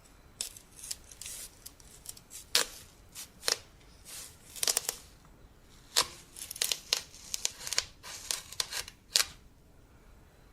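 A watermelon being cut with a knife: the rind and flesh crackle and split as the blade goes through. Sharp cracks stand out about two and a half, three and a half, six and nine seconds in, between softer crunching and slicing.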